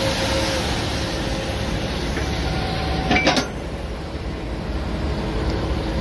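John Deere 850K crawler dozer's six-cylinder diesel engine idling steadily, with a short knock about three seconds in.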